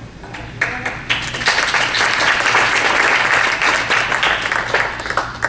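Audience applauding: many hands clapping, swelling over the first second or two and dying away near the end.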